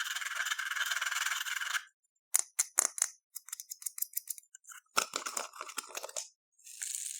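Close-miked foam beads and crunchy floam slime being worked. A steady rattling hiss gives way to a run of crisp crackles and clicks, and the rattling hiss returns near the end.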